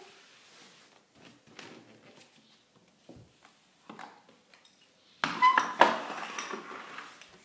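Plastic baby play gym being picked up and moved, its arches and hanging toys clattering and rattling for about two seconds, starting about five seconds in. Before that, only faint scattered small knocks.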